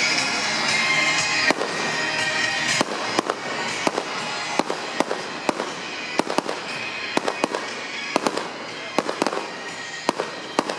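Fireworks display: a dense crackling rush for about the first three seconds, then a run of sharp bangs and pops, unevenly spaced, a few each second.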